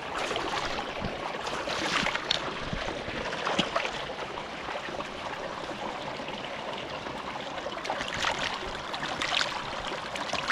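Steady rush of running water, like a stream, with scattered light clicks and knocks over it.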